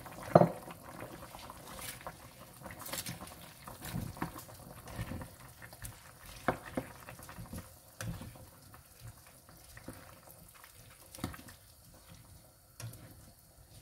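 Chicken tinola broth simmering in a stone-coated nonstick pan while a spatula stirs and presses greens into it, with bubbling under irregular soft knocks and scrapes of the spatula against the pan. The loudest knock comes about half a second in.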